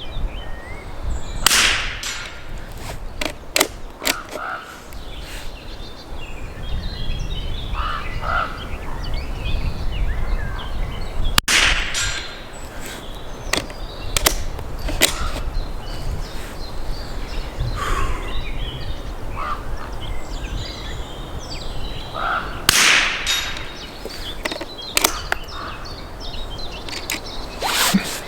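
Norinco JW25A .22 LR bolt-action rifle, a K98 copy, fired three times about ten seconds apart, with sharp clicks in between and wind rumbling on the microphone.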